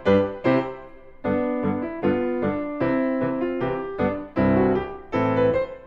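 Christmas music played on piano, notes and chords struck in a steady rhythm, each ringing and fading.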